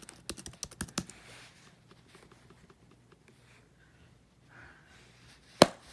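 Keys on a 2014 MacBook Pro keyboard being pressed in a quick run of clicks over the first second and a half, then quiet, with one loud sharp knock near the end.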